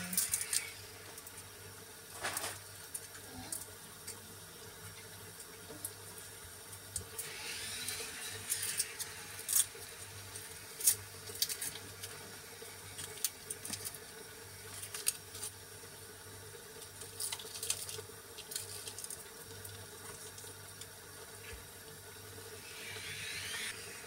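Quiet kitchen background: a steady low hum with scattered light clicks and two short stretches of watery hiss, one about a third of the way in and one near the end.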